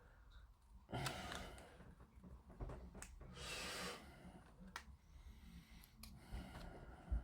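Quiet close breathing: a breath about a second in and a longer hissing exhale around three and a half seconds, with a few faint sharp clicks.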